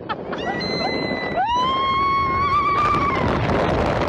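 A person screaming: a long high scream that rises about a second and a half in and is held with a wavering pitch, after a shorter, higher cry. Steady wind noise rushes over the microphone throughout.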